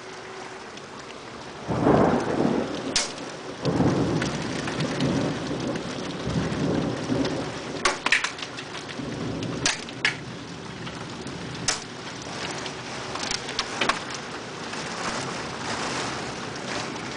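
Heavy rain pouring during a thunderstorm, with thunder rolling in long rumbles, loudest about two seconds in. Occasional sharp taps of drops striking close by.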